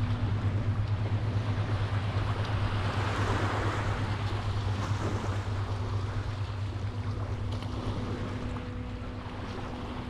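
Small waves washing onto a sandy beach, swelling about three seconds in, with wind rumbling on the microphone and a faint steady low hum underneath.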